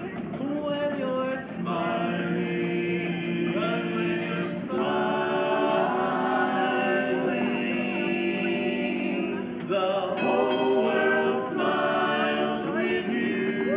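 Barbershop quartet of male voices singing a cappella in close harmony, holding long chords that change every second or two.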